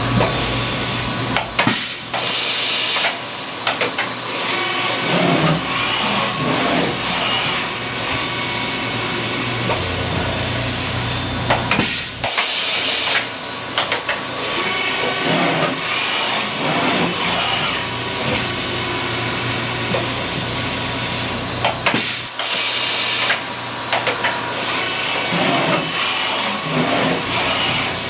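Leadwell V-20i CNC vertical machining center running under power, with a steady machine hum and whine. Long spells of loud hissing switch on and off several times.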